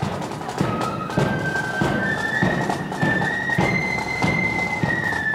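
Marching flute band playing a tune: flutes in unison carry a high melody over a steady drum beat, a little over two beats a second.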